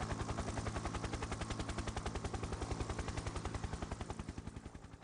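Machine-gun sound effect: one long unbroken burst of rapid automatic fire, more than ten shots a second, fading out near the end.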